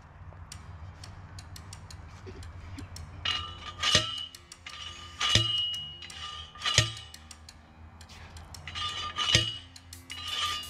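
Steel star picket driver slammed down onto a star picket four times, each blow a sharp metal clang that rings on briefly; the first three come about a second and a half apart, the last after a longer pause. Lighter clinks of the driver sliding on the picket come between blows.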